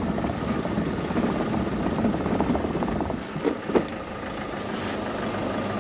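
Engine of the vehicle towing a boat trailer, running steadily down the slipway and across the sand, with two sharp knocks a little past halfway.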